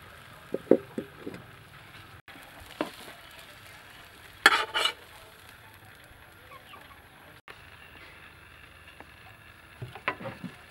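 Egg frying in a pan with a faint sizzle, broken by a few light knocks of a utensil on the pan and a louder short scraping rattle about four and a half seconds in.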